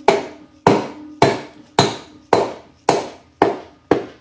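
Light hammer taps on a piston, eight evenly spaced taps about two a second, driving it through a piston ring compressor into a small engine's cylinder bore. Each tap is a short knock with a brief metallic ring.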